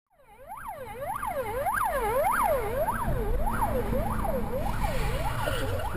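Police car siren on a fast yelp, its pitch sweeping up and down about twice a second. It fades in over the first second, over the low rumble of a moving vehicle.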